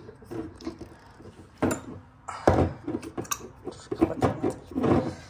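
Glass syrup bottle being handled: a few short knocks and clunks, the loudest about two and a half seconds in.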